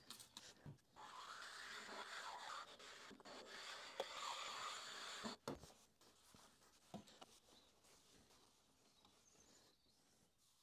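An abrasive stone wet with WD-40 rubbed lightly across the milling machine's cast-iron table, a soft scraping with a few small clicks, to take raised paint overspray off the surface. It stops about six seconds in.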